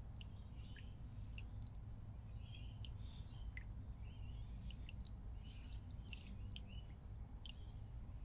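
Faint room tone beside an aquarium: a steady low hum, with many small high ticks and drip-like clicks and brief chirp-like sounds scattered throughout.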